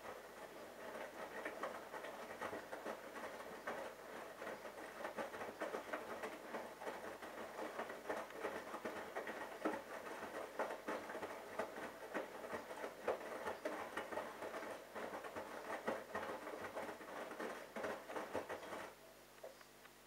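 Bosch Logixx WAS32461 washing machine drum turning in the main wash, a full load of wet laundry tumbling and falling inside it with a dense, uneven patter. It stops abruptly about nineteen seconds in as the drum pauses.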